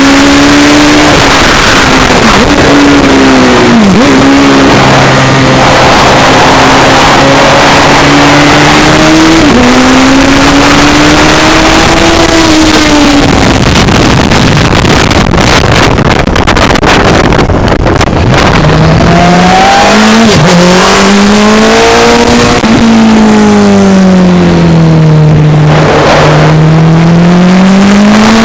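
Racing sidecar outfit's engine at speed on track, very loud, its pitch climbing, dipping sharply and climbing again, under heavy wind noise on the onboard microphone. For several seconds in the middle the wind rush covers the engine, and near the end the engine note falls and then rises again.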